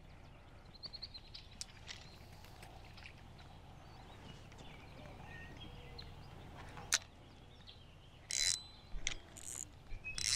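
Faint outdoor ambience with a few bird chirps. A sharp click comes about two-thirds of the way through, then several short rustling, scraping bursts near the end from hands handling a spinning reel and its line.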